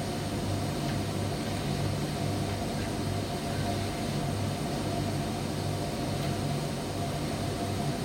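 Primus commercial tumble dryer running: a steady hum over an even rushing noise that does not change.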